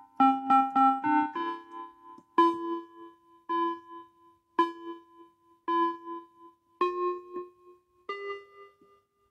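Background piano music: a few quick chords, then single notes struck about once a second, each ringing out and fading before the next.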